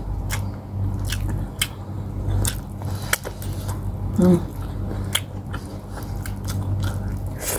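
Chewing and wet mouth smacking while eating stewed pork hock and rice, with sharp mouth clicks at irregular intervals over a steady low hum. A short hummed sound comes about four seconds in.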